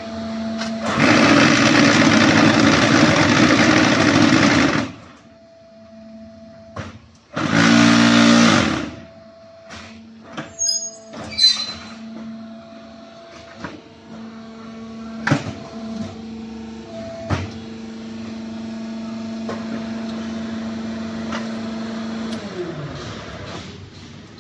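QT4-18 concrete hollow block machine working through a moulding cycle. The electric motor hums steadily throughout. For about four seconds comes a loud, dense rattling vibration as the concrete in the mould is compacted, then a second, shorter burst of vibration, followed by several separate knocks and clanks of the mould and hydraulics. Near the end the motor hum slides down in pitch and fades as the machine winds down.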